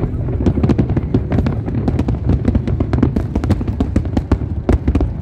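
Aerial fireworks display: many shells bursting and crackling in quick, irregular succession over a continuous low rumble.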